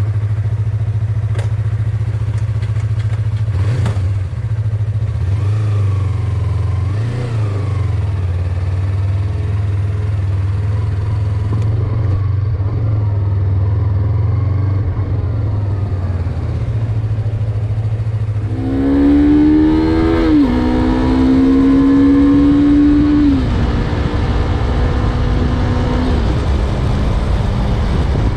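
Yamaha MT-03 motorcycle engine running steadily at a low note, then, about two-thirds of the way in, pulling away: the engine note climbs, drops at a gear change, climbs again and holds before easing off.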